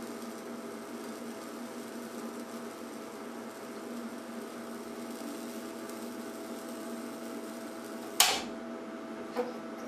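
12 kV 30 mA neon sign transformer humming under load while high-voltage discharges arc and burn through a salt-water-wetted wooden board. One loud sharp crack about eight seconds in, and a smaller one shortly after.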